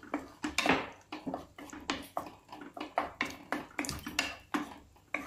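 Wooden spatula stirring freshly added curd through boiled taro pieces and masala in a nonstick kadhai: repeated wet scraping strokes and light knocks against the pan, about two or three a second.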